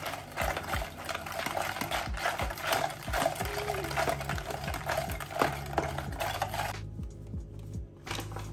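A metal spoon beating a frothy liquid fast in a plastic tub: a quick, continuous clatter of metal against plastic with a wet slosh, the first mixing for a flatbread dough. The beating stops about seven seconds in, and flour starts pouring into the tub near the end.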